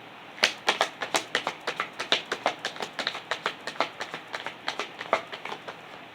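A tarot deck being shuffled by hand: a quick, uneven run of card slaps and clicks, about five a second, starting about half a second in and stopping near the end.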